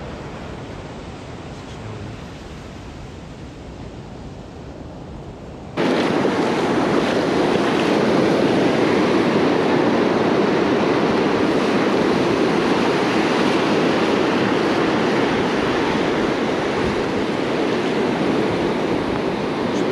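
Ocean surf: waves breaking and washing up a sandy beach, at a moderate level at first, then suddenly much louder and closer from about six seconds in as the water swirls around the listener.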